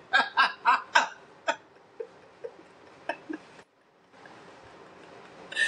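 A woman laughing in a quick run of short bursts that die away after about a second and a half, leaving a few soft clicks and breaths.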